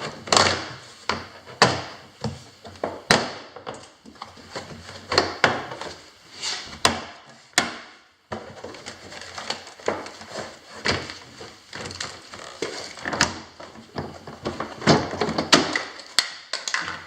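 2010 Kia Soul front door trim panel being pried and pulled off, its plastic push-in retainer clips popping loose in a string of irregular sharp snaps and knocks.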